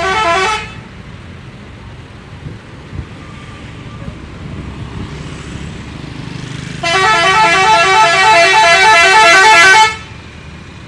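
Bus telolet horn, a set of musical air horns playing a quick tune of alternating notes. A short blast sounds at the very start, then a long blast of about three seconds comes in past the middle and cuts off sharply.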